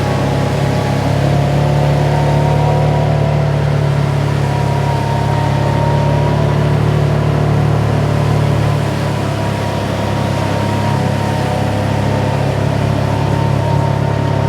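Side-by-side UTV engine running steadily while driving, a constant low drone with a higher whine over it; the sound eases a little about nine seconds in.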